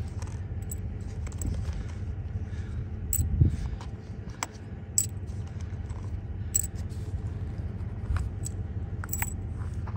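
.223 cartridges clinking and clicking against each other as they are handled and loaded into an AR-15 magazine: a few sharp metallic clicks scattered through, over a steady low rumble.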